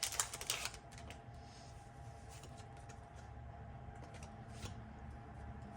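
Faint rustling and a few light clicks of Pokémon trading-card booster packs being handled, over a faint steady hum.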